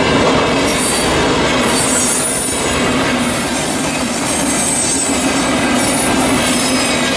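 V/Line VLocity diesel multiple unit passing close by at speed: a loud, steady rush of wheel, rail and underfloor engine noise, with a faint thin high squeal from the wheels.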